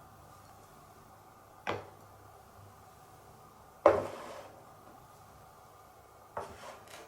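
Marbles clacking through a wooden Cuboro marble run: a few separate knocks of marble on wood, the loudest about four seconds in with a short ringing tail, then a quick double knock near the end.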